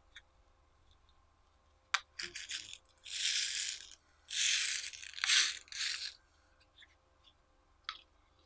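A sharp click, then several rattling bursts of about a second each, like small hard pieces rattling in a container, as when slime add-ins are poured or shaken in.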